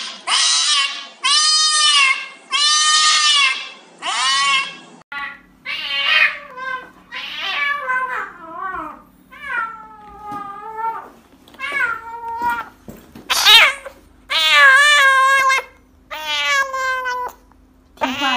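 Cats meowing in distress while being given injections: first four long, loud meows in a row, then, after a cut about five seconds in, a grey kitten giving a string of shorter, varied meows.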